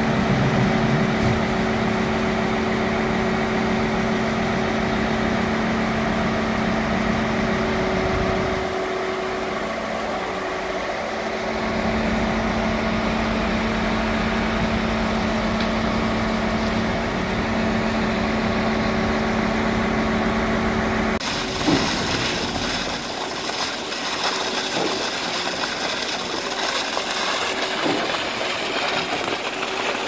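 Heavy diesel truck engines at a concrete pour, from the mixer and pump trucks, running with a steady hum at constant revs. About two-thirds of the way through, the hum cuts off abruptly and a rougher, irregular noise takes over.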